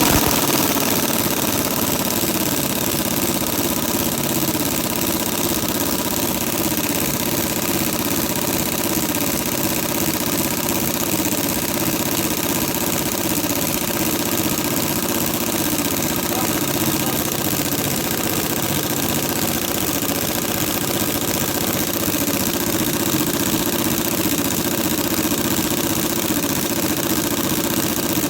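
A motor or small engine running steadily with an even drone, unchanged throughout, loud against the garage.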